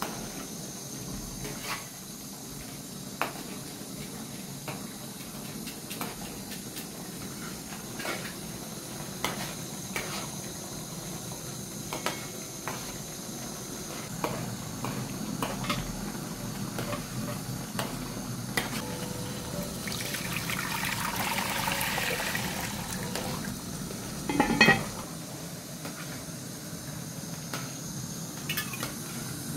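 A metal ladle stirring a pot of simmering stew, with many light clinks of the ladle and utensils against the metal pot and lid. There is one loud clank about three quarters of the way through.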